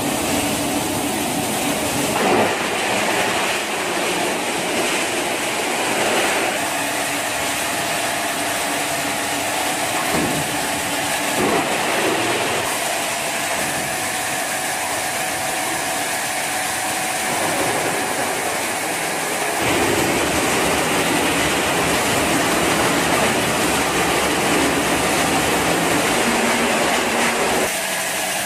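Industrial shredder crushing washing machine shells: continuous machine noise with scattered knocks and cracks. It gets louder about two-thirds of the way in.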